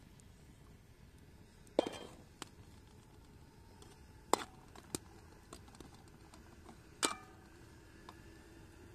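Metal spatula clinking and scraping against a metal frying pan as eggs are worked over a wood fire: a handful of sharp knocks a couple of seconds apart, the loudest about two seconds in and again about seven seconds in.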